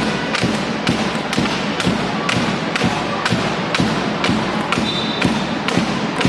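Basketball crowd in a large hall keeping a steady beat of about two sharp strikes a second over general crowd noise.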